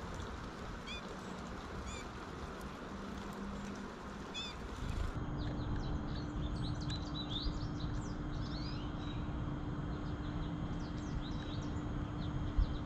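Small songbirds calling over a steady low rumble: a short chirp repeated about once a second at first, then, after an abrupt change about five seconds in, busier twittering of many quick high notes over a faint steady hum.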